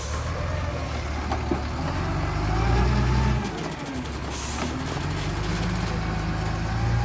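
Engine of a working construction vehicle running under load. It builds up, drops away suddenly about three and a half seconds in, then picks up again, with a brief hiss just after the drop.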